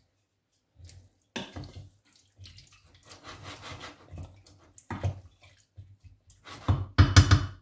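Wooden spoon stirring a liquid chickpea and spinach stew in a stainless-steel pot: wet sloshing and scraping in irregular strokes, loudest near the end.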